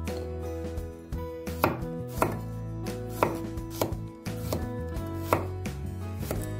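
Chef's knife slicing garlic cloves on a wooden cutting board: sharp knocks of the blade striking the board, about one or two a second at an uneven pace.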